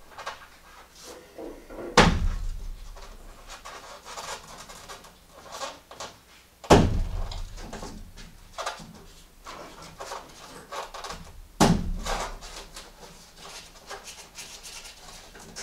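Three heavy thuds about five seconds apart, each followed by a short low boom, with light scraping and clicking between them. The scraping comes from hand work on the foam wall panel, where a chunk of hardened glue is being cleared out of the wiring raceway.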